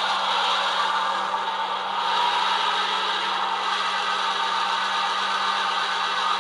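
Rapido SW1200RS HO-scale model diesel switcher running steadily at full effort while it pushes against a force gauge in a pushing-power test. It makes a continuous whir with a constant low hum.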